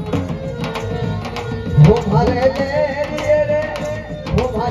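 Live Rajasthani folk music: a dhol beaten in a steady rhythm, with a held, wavering melody joining it about two seconds in.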